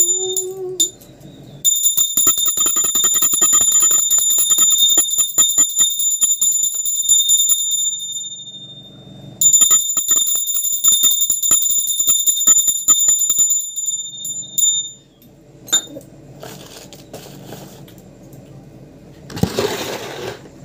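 Small hand bell, as rung at an evening puja, shaken rapidly in two bouts of about six and five seconds. It gives a steady high ring over quick clapper strikes.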